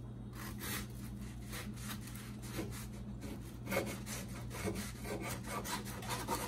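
Kitchen knife sawing back and forth through a grilled flour-tortilla quesadilla, the blade scraping on a bamboo cutting board in a quick run of strokes.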